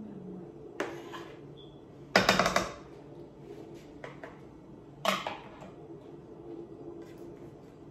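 A spatula scraping and knocking against a plastic mixing bowl as chocolate cake batter is scraped out into a metal cake pan. There are three short bouts of clatter, the loudest about two seconds in.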